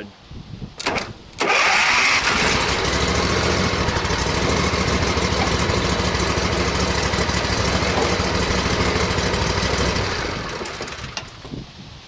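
Zero-turn lawn mower with its starter solenoid bypassed by a bolt across the two main terminals: a few sharp clicks, then the starter cranks and the engine catches and runs steadily before dying away near the end. Starting with the solenoid bypassed shows that the solenoid, not the starter, was why it only clicked.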